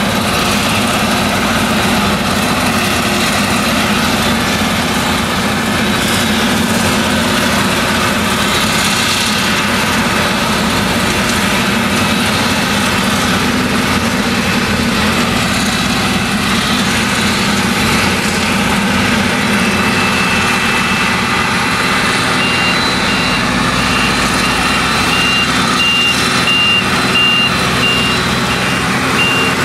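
Claas Jaguar 970 forage harvester with its MAN V8 engine working under load while chopping maize: a steady, dense machine noise with a constant high whine above it. About three quarters of the way through, a rapid high warning beep starts and keeps repeating to the end.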